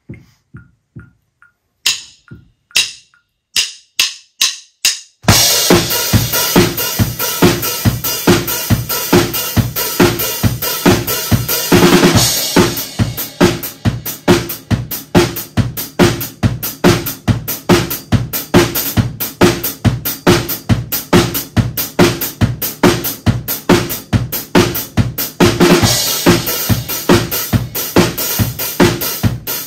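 A DW drum kit played live: a few separate sharp strikes count in, then about five seconds in the full kit comes in with a steady beat of bass drum, snare and cymbals. Louder cymbal washes come in around twelve seconds and again near the end.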